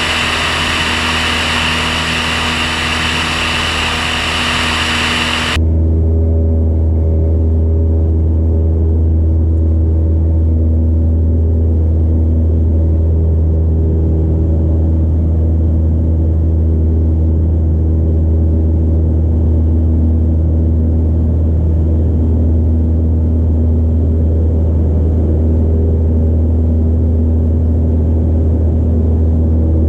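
Light aircraft's propeller engine running steadily in cruise, first with rushing airflow noise outside the cabin, then, about five seconds in, changing abruptly to a muffled, steady low drone heard inside the cockpit.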